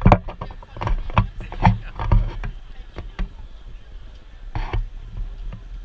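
Irregular knocks and a low rumble from a handheld action camera's microphone being jostled and buffeted. The knocks come thick in the first half, with another short burst near the end, over the faint hubbub of a crowded square.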